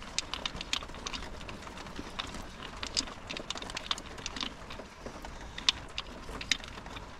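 Rain dripping and falling on the car and its surroundings: irregular light, sharp taps, several a second, over a soft steady hiss.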